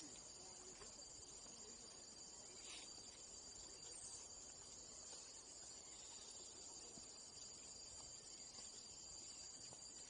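Faint, steady high-pitched insect chorus from the forest undergrowth.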